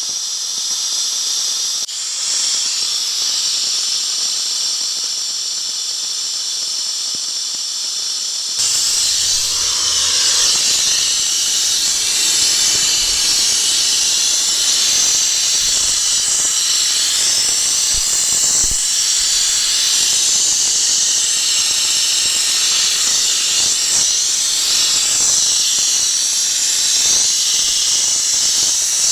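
Air-powered headrest vacuum run off shop compressed air, hissing steadily as it pulls the air out of the bag to shrink the headrest foam. The hiss gets louder and fuller about eight or nine seconds in.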